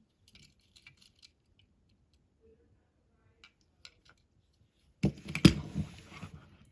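Light clicks and taps of small diecast toy cars being handled, then about five seconds in a louder burst of clattering and rustling with one sharp knock.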